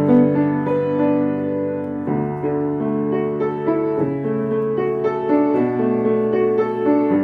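Solo piano playing a slow piece. Held melody notes sound over bass notes that change about every two seconds.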